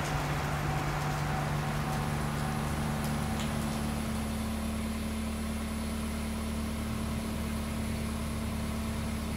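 Steady low engine hum of an aerial work platform idling, with held tones that shift a little about a second and a half in and again around four seconds.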